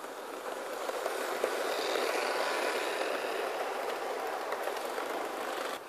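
Electric model train rolling past on sectional track: the motor hum and the rattle of wheels on the rails grow louder as the locomotive and its double-deck coaches go by. The sound then cuts off suddenly near the end.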